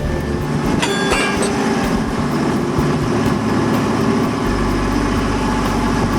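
An engine running steadily with a rapid, even pulse, with a few sharp metallic clicks about a second in.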